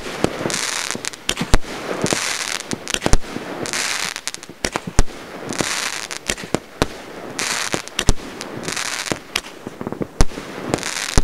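Fireworks going off: sharp bangs at uneven intervals, about one a second, with short patches of hissing and crackling between them.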